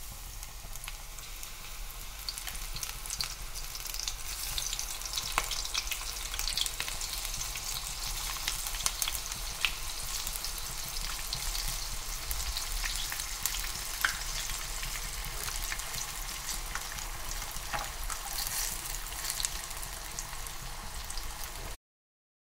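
Batter-coated leaves deep-frying as bajji in hot oil: a steady sizzle with frequent sharp crackles and pops. It cuts off suddenly near the end.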